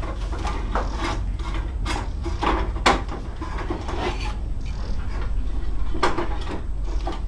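Irregular knocking and scraping, like wood or tools being handled, with one sharp knock about three seconds in, over a steady low rumble.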